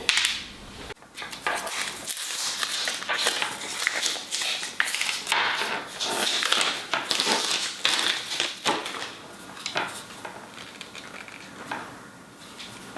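Irregular clicking, clattering and rustling of things being handled, in uneven bursts throughout.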